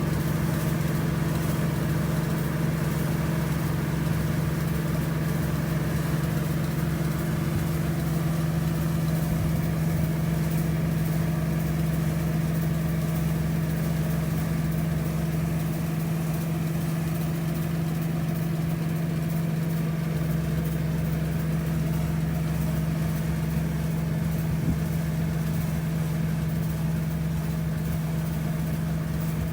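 An engine running steadily at a constant speed, a strong even hum that does not rise or fall.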